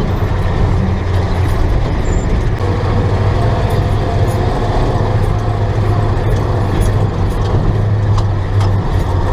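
A vehicle engine running steadily with a strong low hum while driving over a rough dirt track, with scattered rattles and knocks from the body bouncing.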